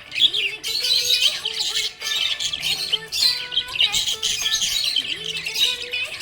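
Budgerigars chirping and warbling in a dense, continuous chatter of quick, high twittering notes, over background music with held tones.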